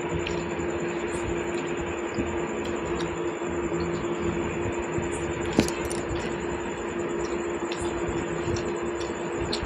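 A steady hum over a steady hiss, with a few faint clicks and a sharper click about five and a half seconds in.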